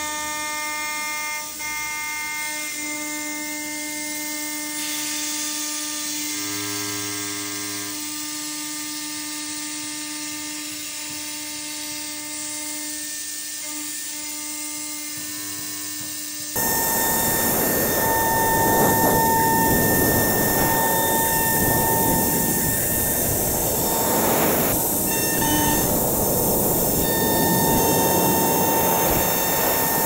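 Fortis CNC router's 80 mm spindle whining steadily while its end mill cuts an aluminium plate. About sixteen seconds in, the sound jumps louder to a dense cutting hiss over the same whine.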